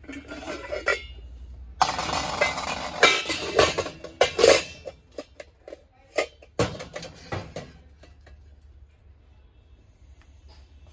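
Nested brass cooking pots being handled and pulled apart: metal scraping and rattling against metal, then several separate sharp clinks and knocks.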